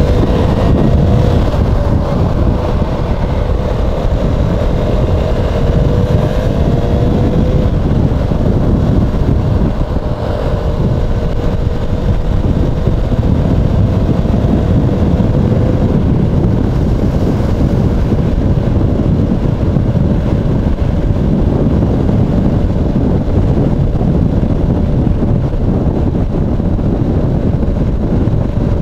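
KTM 390 motorcycle's single-cylinder engine pulling away and accelerating, its pitch climbing over the first several seconds and then settling into a steady cruise. Heavy wind rumble on the rider's lav microphone runs underneath.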